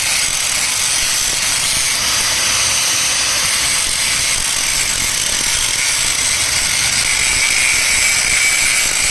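Stick-welding arc burning steadily, a continuous crackling hiss that stops abruptly at the end.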